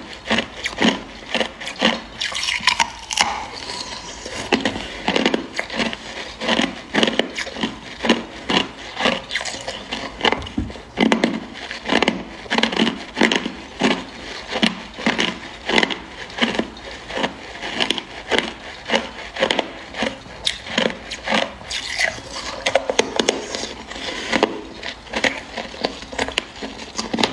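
Hard clear ice bitten and chewed close to the microphone: a steady run of sharp crunches, two or three a second.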